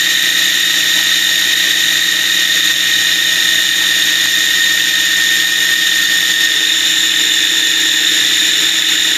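Electric food processor motor running steadily at full speed, with a constant high whine, as it whips garlic and oil into toum, a mayonnaise-like garlic emulsion.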